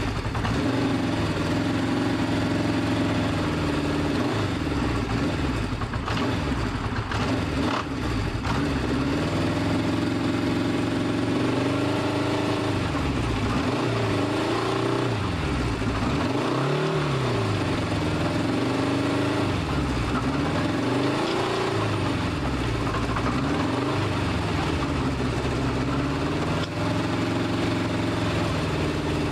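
1972 Honda CB500 Four's air-cooled inline-four engine running on a freshly rebuilt bike as it warms up for the first time. It idles steadily at first, then is blipped up and down several times in the second half.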